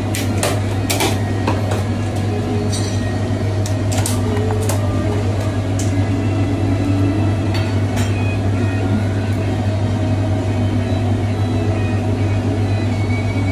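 A steady low hum runs throughout, with scattered clicks and scrapes of utensils as sticky pink glutinous rice is scooped from an aluminium pan into a plastic container, most of them in the first half.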